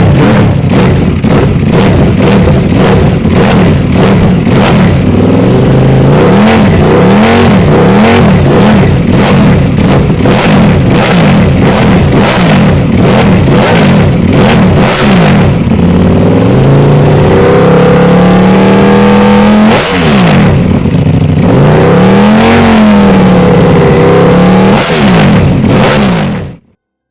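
Ducati V4 S's V4 engine through a Termignoni GP race exhaust, very loud, revved up and down again and again with rising and falling pitch. The sound cuts off suddenly near the end.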